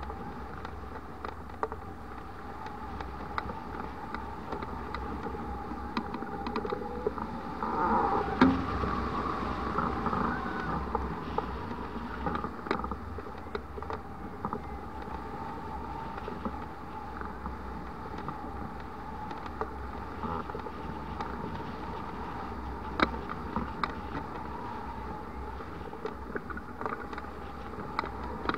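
Airflow rushing past a hang glider in flight. A thin steady tone runs underneath, with scattered sharp ticks. The rush swells for a few seconds about a third of the way in.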